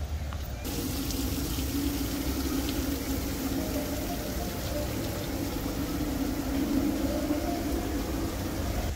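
Steady rush of running water, starting suddenly about half a second in and holding at an even level.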